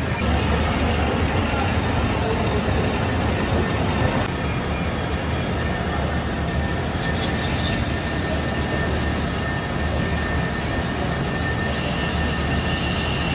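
Factory machinery running steadily: a continuous noisy rumble with a low hum that turns hissier about seven seconds in.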